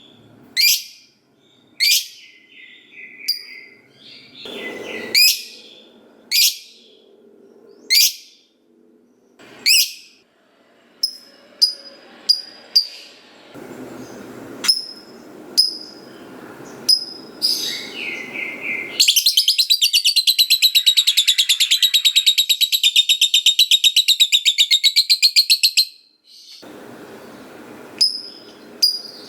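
Lovebird calling: sharp high chirps about once a second, then a long, fast chattering trill (ngekek panjang) lasting about seven seconds, then short chirps again.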